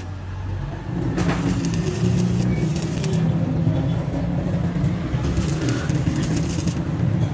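Stick (arc) welding on a truck's rear axle housing: the electrode arc crackles and sizzles in spells, over a steady low machine hum that sets in about a second in.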